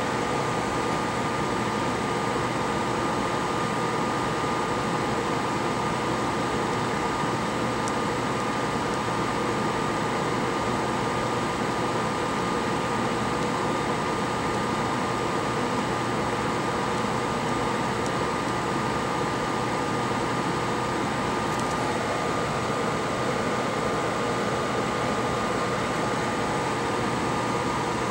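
Steady fan whir with a constant high whine.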